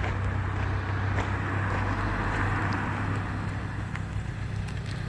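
Car engine running with a steady low hum, and a hiss that swells and fades in the middle.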